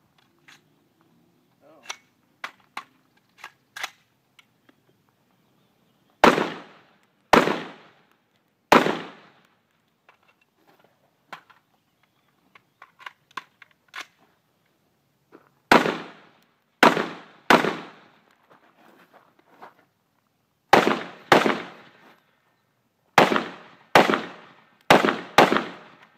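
Rifle fire in quick strings: three shots about six seconds in, three more around the middle, then two and a final rapid string of five near the end, each shot with a short echo. Faint clicks and knocks between the strings.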